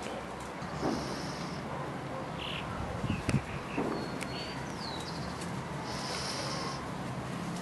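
Outdoor ambience: a few short bird chirps and a falling whistle about halfway through, over a steady low background rumble.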